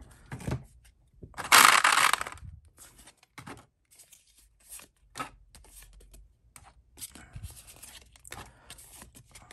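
Trading cards and clear plastic packaging handled by hand. There is one loud, noisy rustle lasting under a second about one and a half seconds in, then quieter scattered clicks and card-on-card rustling.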